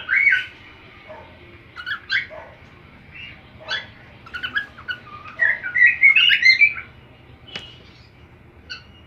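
Cockatiel whistling and chirping in short phrases of gliding notes that rise and fall, with a longer, louder whistled run about five and a half seconds in. A single sharp click comes near the end.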